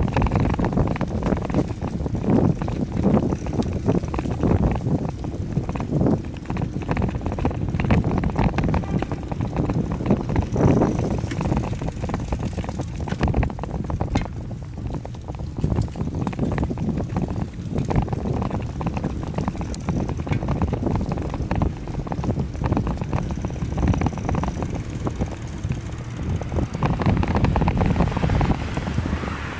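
Wind buffeting the microphone of a camera riding on a moving bicycle: a continuous low rumble with frequent short knocks and rattles from the bike and road surface.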